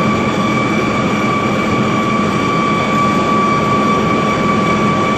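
Small electric motor running steadily, with a high whine over a hiss.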